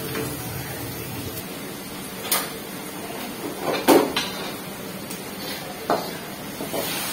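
Metal cookware clattering on a gas stove: a ladle knocking against a steel soup pot and a pan being handled and scraped over it. About six sharp clanks at uneven intervals, the loudest near the middle.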